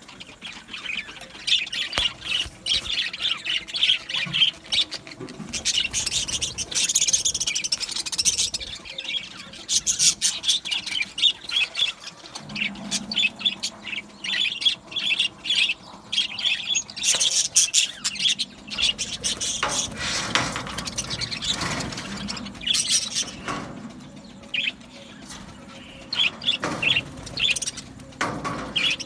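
A flock of budgerigars chirping and chattering continuously, with many short overlapping calls and squawks.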